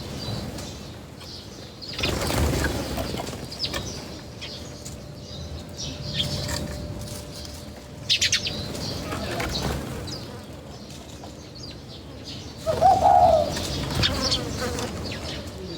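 Birds at a feeding spot: wings flapping in several bursts, a few quick clicks, and a short low call near the end.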